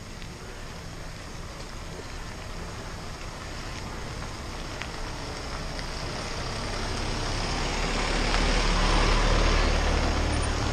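Motor vehicles, a small truck and a pickup, driving past the riders, their engine noise swelling to a peak near the end, over the steady rush of riding a bicycle.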